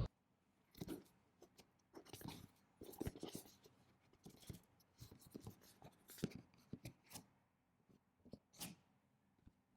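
Faint handling of a speaker's cardboard box and packaging: scrapes, rustles and light taps at irregular intervals, about one or two a second.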